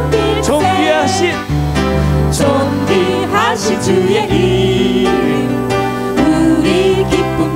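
A church praise team of men's and women's voices singing a hymn into microphones, over an instrumental accompaniment with a steady bass line.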